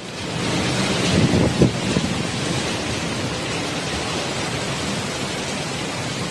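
Steady rushing noise of cyclone wind and heavy rain, with a louder low surge about a second in.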